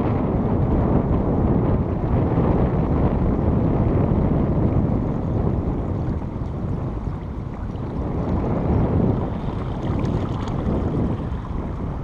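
Strong wind buffeting the camera's microphone: a steady, dense low rumble that eases a little in the middle, over the wash of shallow river water.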